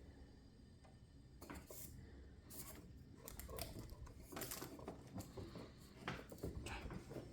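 Faint, scattered rustling, scraping and light knocking of packaging as the AMS unit is pulled up out of its box. The handling sounds grow busier after the first second or so.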